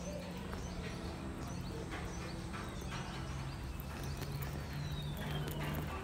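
Footsteps of canvas sneakers on brick paving, brisk and even at about two steps a second.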